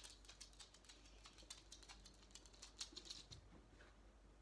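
Near silence with faint, irregular rustling and tiny clicks from a person shifting on an exercise mat as she rolls from her side onto her back.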